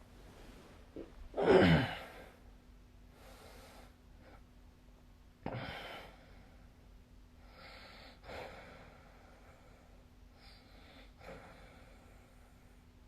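A sleeping person snoring with a fluttering 'buru-buru' rattle. A loud snore comes about a second and a half in, a shorter, sharper one starts suddenly a few seconds later, and fainter breaths follow at intervals.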